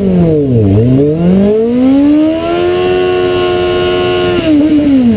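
Sportbike engine revving hard for a burnout, spinning the rear tyre into thick smoke. The revs dip about half a second in, climb and hold high for a couple of seconds, then fall away near the end.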